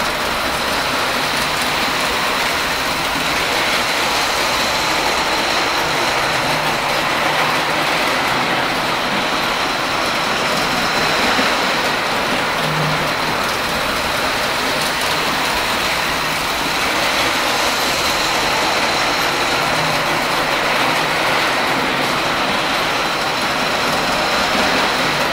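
G gauge model train running on the layout track: a steady rolling hiss of wheels and motor with a faint high whine, and no clear rhythm.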